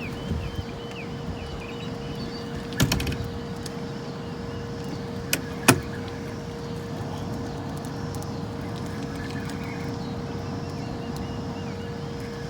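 Steady rush of water from a hydroelectric dam's generator discharge, with a constant hum underneath. Sharp knocks come about three seconds in, and two quick clicks a little before the middle.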